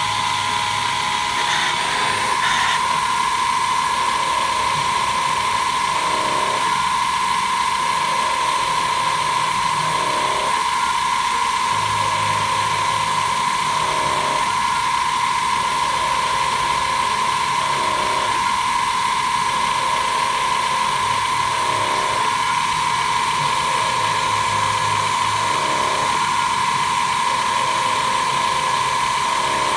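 Mini CNC machine running while it cuts a brass tube: a steady high whine throughout, under a lower sound that rises and falls about every four seconds.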